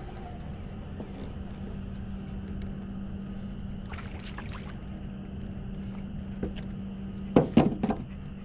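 Steady low hum around the boat, then near the end a quick run of loud splashes as a hooked skipjack herring thrashes at the surface and is swung out of the water.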